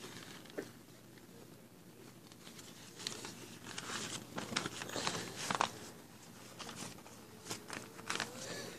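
Faint rustling and crinkling of items being handled, with a few light taps, busiest from about three to six seconds in.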